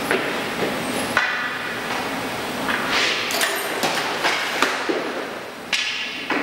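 A hockey goaltender's skate blades scraping and sliding on synthetic plastic ice as he moves and drops into butterfly saves, a few hissing scrapes about a second long. These are mixed with sharp knocks of pucks being shot and striking his pads, stick and the hard surface.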